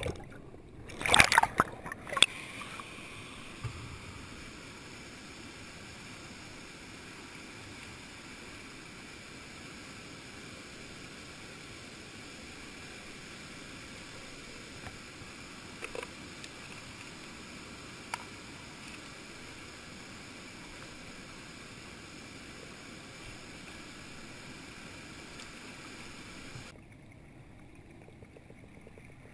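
Steady muffled rush of flowing stream water heard through an underwater camera, with a few loud splashes or knocks about a second in.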